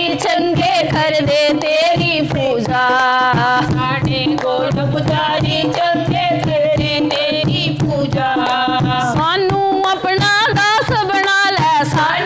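Women's voices singing a Punjabi devotional bhajan together, accompanied by a dholak drum and hand claps.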